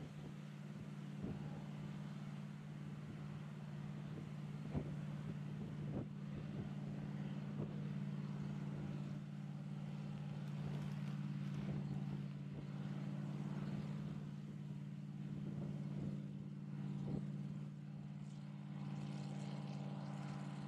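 Versatile 700 Series II tractor's 210 hp V8 diesel engine running steadily under load, pulling a chisel plow, getting a little louder over the first several seconds as the tractor comes closer.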